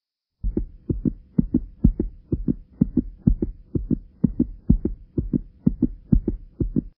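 Heartbeat sound effect: fast paired thumps, about two beats a second, over a faint steady hum, starting about half a second in.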